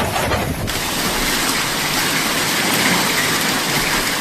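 Heavy storm rain and running water: a dense, steady hiss that comes in suddenly just under a second in.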